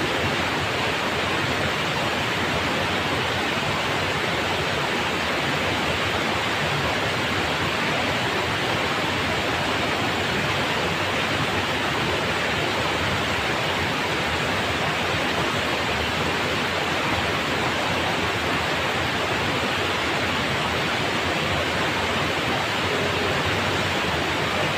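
Steady rush of river water pouring over a low weir and churning into the pool below it.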